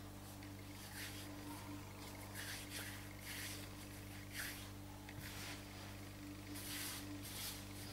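Hands kneading sticky roscón dough on a floured granite countertop: faint, irregular squishing and rubbing strokes about once or twice a second, over a steady low hum.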